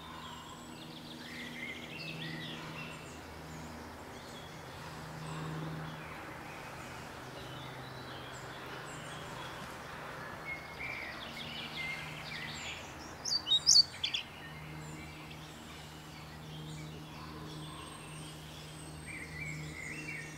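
Songbirds chirping and calling at intervals, with a quick run of loud, sharp high calls from a bird close by about thirteen seconds in. A steady low hum runs underneath.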